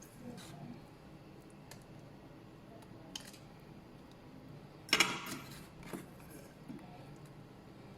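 Kitchenware being handled: a few soft clicks and taps, and one louder clatter with a brief rattle about five seconds in.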